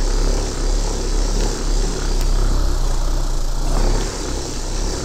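Handheld electric buffing machine with a polishing mop running steadily, its mop rubbing over a dried mineral-based plaster wall finish to polish it smooth. The motor hum holds steady, easing slightly about four seconds in.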